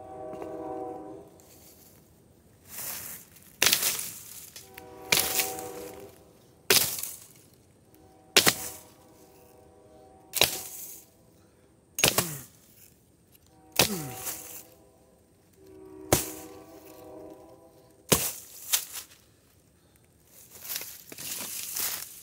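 Repeated chops of a blade into the trunk of a small tree: about ten sharp strikes, roughly one every one and a half to two seconds.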